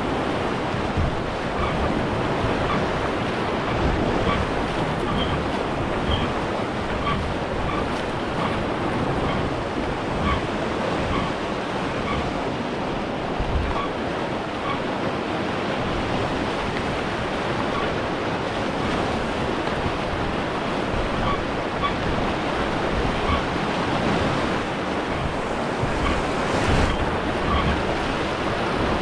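Steady rush of river water, with wind on the microphone. Faint short high chirps recur about once a second.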